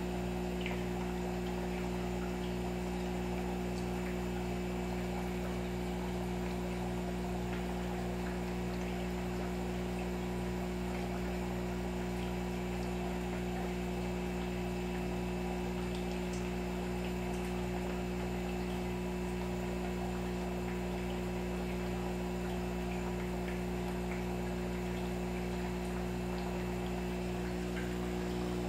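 Steady electrical hum made of several constant low tones, with an even hiss of noise over it.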